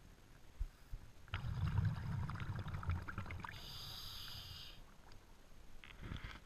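Scuba diver breathing through a regulator underwater: a gush of exhaled bubbles bubbling and crackling for about two seconds, then a short high hiss of the inhale through the regulator, with the next exhale starting near the end.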